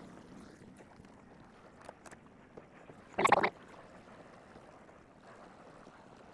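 Faint background of a small boat trolling on calm water, with a low hum that fades early on. About three seconds in comes one short, loud burst of noise lasting about a third of a second.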